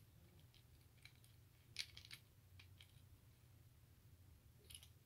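A few faint, scattered clicks as a small handheld flashlight is handled, the loudest pair about two seconds in.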